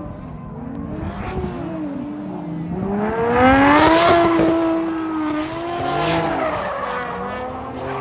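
Car engine revving up and down under hard driving, with tires squealing, as in drifting. The revs climb to their loudest peak about four seconds in, fall away, then rise again more briefly near six seconds.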